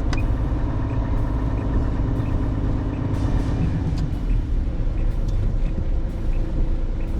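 Large truck's diesel engine running steadily while driving, heard from inside the cab, with a faint regular ticking over it.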